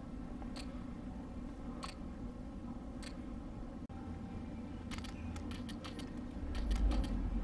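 Handheld camera handling noise: a steady low rumble with scattered sharp clicks, a few single ones in the first three seconds, then a quick run of clicks and a low thump near the end.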